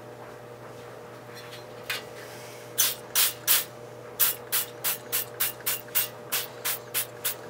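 Hand trigger spray bottle squirting rust remover onto metal parts in quick short sprays, about three a second, starting two to three seconds in.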